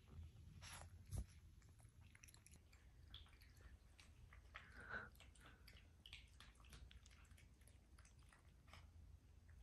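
Small dog eating cooked chicken from a ceramic bowl on a feeding stand: faint wet chewing and small clicks, with one louder knock about a second in.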